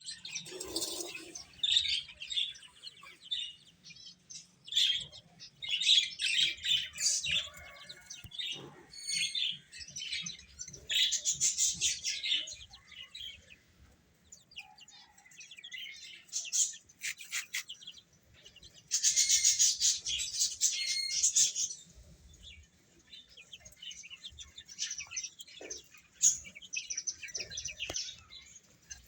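Baby chicken chicks peeping, many high-pitched chirps overlapping in irregular bursts, with a louder dense chorus of cheeping about two-thirds of the way through.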